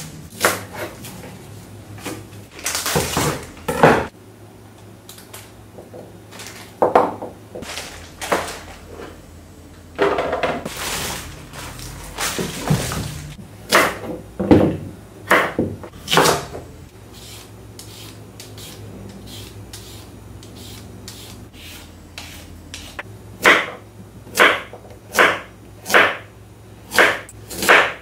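Kitchen food-preparation sounds: scattered knocks, clatter and rustling of utensils and food over a faint steady hum. Near the end comes a regular series of sharp strokes, about one a second.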